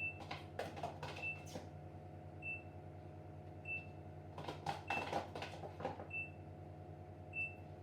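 Kitchen utensil clinking and scraping against a casserole dish as sauce is spooned onto a lasagna, in irregular bursts. Under it runs a steady hum, with a short high beep repeating about every second and a bit.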